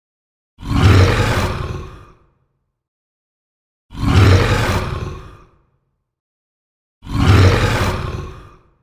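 Xenomorph roar sound effect: a harsh creature roar played three times, each about a second and a half long, starting abruptly and trailing off, with silence between.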